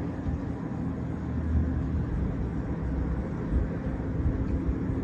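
Wind buffeting the microphone in an irregular low rumble, with a faint steady hum underneath.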